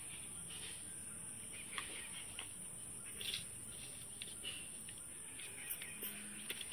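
Chickens clucking off and on in short, separate calls.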